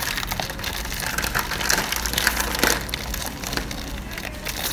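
Foil Pokémon card booster pack crinkling and crackling as it is torn open by hand.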